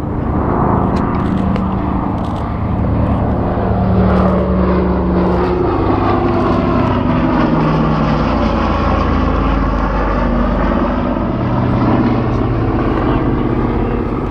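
Jet engines of several BAE Hawk T1 trainers flying past in a formation display: a loud, steady rush with humming tones that shift in pitch as the aircraft pass.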